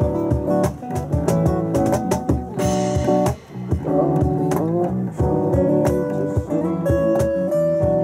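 Live band music: strummed acoustic guitars over an electric bass line, with a steady beat from a cajón.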